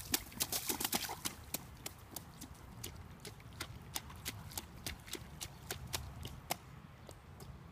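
A small child's rubber rain boots splashing through a shallow street puddle at a run, quick slapping steps that grow fainter and stop about six and a half seconds in.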